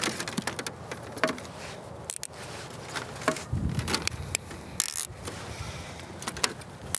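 Scattered clicks, taps and scrapes of plastic zip ties being threaded through an ABS plastic MOLLE panel and loosely fastened to an e-bike frame, with the panel knocking lightly against the frame.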